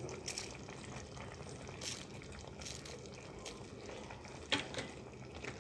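Chicken curry bubbling gently in a pan over a low flame: a steady soft simmer with a few faint clicks.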